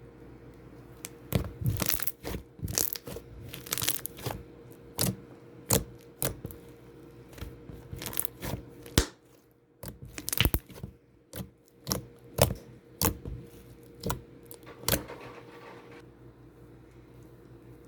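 Fluffy shaving-cream slime being squeezed and stretched by hand, giving off irregular crackling and popping sounds, with some louder pops.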